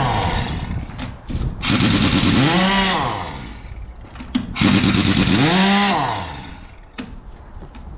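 Pneumatic impact wrench undoing the wheel nuts on a semi-trailer wheel with a punctured tyre. A short burst comes at the start, then two longer runs, each rising and then falling in pitch.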